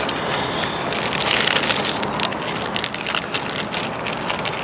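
Clear plastic bag crinkling and crackling as it is handled, with irregular sharp crackles that are densest about a second in.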